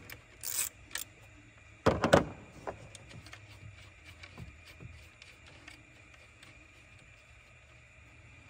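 Hand work at an alternator under the hood: a brief hiss and a click, then a loud clattering knock about two seconds in, followed by a few light clicks as the small plastic wiring plug on the alternator is handled. A faint steady hum sits underneath.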